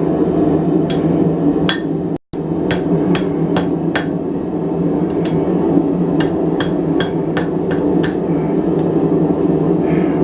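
Hand hammer striking hot coil-spring steel on an anvil in two runs of quick, uneven blows, each with a short metallic ring, over a steady low roar. The sound drops out completely for a moment about two seconds in.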